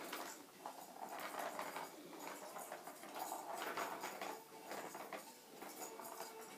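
Plastic ball rolling and rattling around a Catit play-circuit track as a kitten bats at it, a rumbling run that swells in stretches with irregular clicks and knocks against the plastic.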